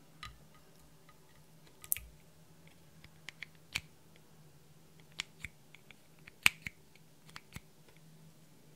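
Thin metal spatula scraping lip balm out of a small plastic holder and knocking against it and the glass dish: scattered, irregular sharp clicks and taps, the loudest about six and a half seconds in.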